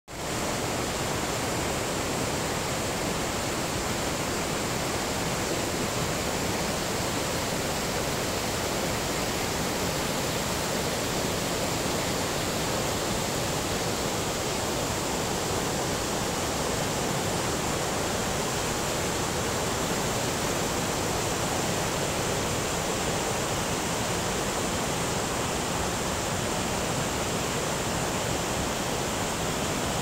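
Shallow rocky forest stream rushing over boulders and small cascades: a steady, even rush of running water.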